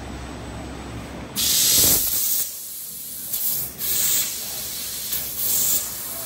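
CNC fiber laser cutting sheet steel, its assist gas hissing loudly through the cutting nozzle in four bursts of half a second to a second as the head cuts. Before that, about the first second and a half holds only a low rumble.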